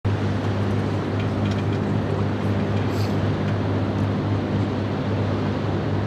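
Steady low drone of ship diesel engines running across the harbour water, an even hum that holds without change.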